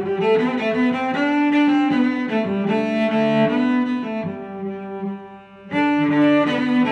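Background music played on bowed strings with a cello-like low voice: sustained notes moving in a melody. It thins and drops briefly about two-thirds of the way through, then comes back in full.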